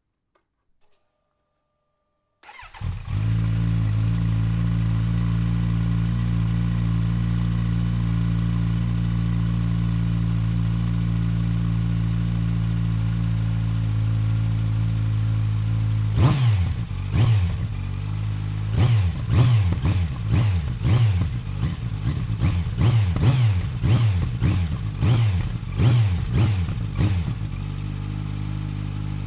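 Kawasaki Z900 inline-four motorcycle engine with a Bodis GPC RS2 aftermarket exhaust starting about two seconds in and settling into a steady idle. Around halfway through it is revved in a long series of quick, sharp throttle blips, each rising and dropping back, then returns to a steady idle near the end.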